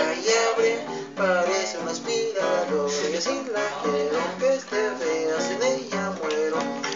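Acoustic guitar strummed in a steady rhythm, with a voice singing along over the chords.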